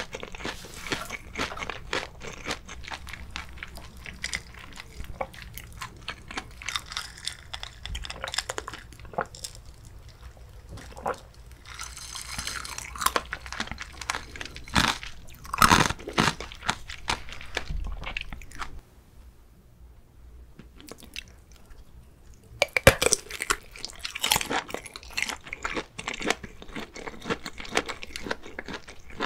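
Close-miked chewing and crunching of fried sausage, with crisp bites of the casing. After a short lull about two-thirds of the way through comes a loud crunchy bite, then more chewing.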